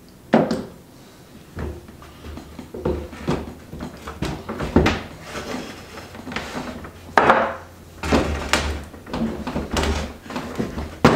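Cedar planter box being flipped over and repositioned on a wooden workbench while bar clamps are shifted on it: several irregular wooden knocks and clunks.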